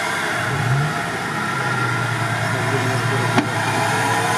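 Toyota FJ Cruiser's 4.0 L V6 revving up briefly, then held at steady revs under load as it strains to climb out of a rut. A single sharp click about three and a half seconds in.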